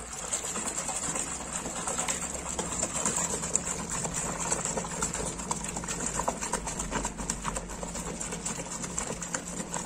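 A rag scrubbed and swished by hand in foamy soapy water in a plastic basin, giving continuous irregular sloshing and splashing, with a steady low hum underneath.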